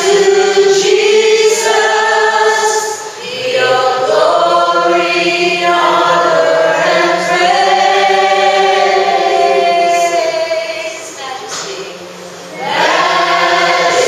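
A group of voices singing a worship song together in long, held phrases, with a short break about three seconds in and another near the end.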